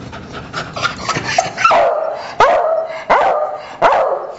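Beagle barking over and over, each bark starting sharp and high and dropping in pitch, about one every 0.7 seconds from about a second and a half in. Before that there is quieter scattered clicking and shuffling.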